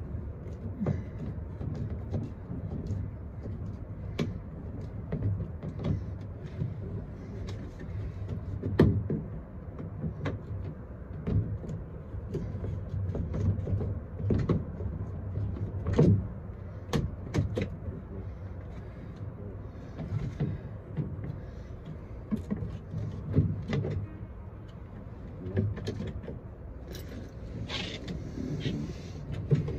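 Scattered clicks, knocks and rattles of hand work on a side-by-side's plastic dashboard as its screws are loosened and the dash is pulled back, over a steady low hum.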